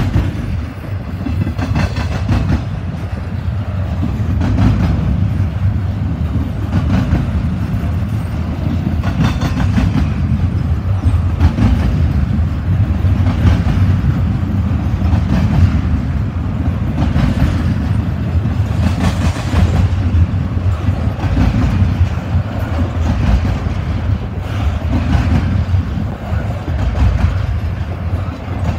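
Double-stack intermodal well cars of a freight train rolling past: a loud, steady low rumble of steel wheels on the rails, with clicks and clatter from the wheels every second or two.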